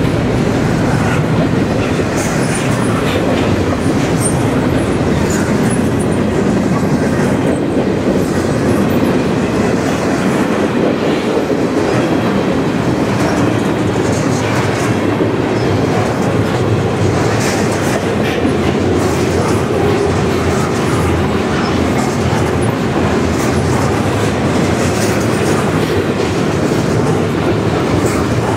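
Double-stack intermodal container cars (TTX well cars) rolling past close by: loud, steady rolling noise of steel wheels on the rails, with repeated clicks.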